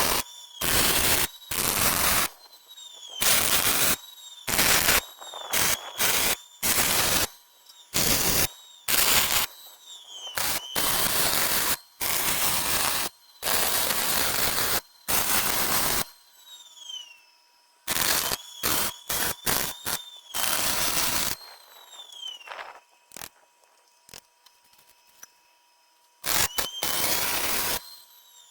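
Arc welding on steel: a run of tack welds, each a burst of crackling lasting from a fraction of a second to about four seconds. A whine rises as each burst starts and falls as it ends, with longer pauses after the middle and near the end.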